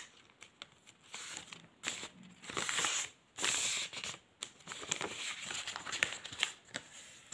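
Paper pattern pieces rustling and crinkling as they are handled and folded by hand, in irregular short bursts.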